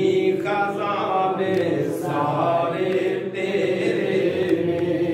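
Male devotional chanting in long, drawn-out notes that rise and fall slowly in pitch.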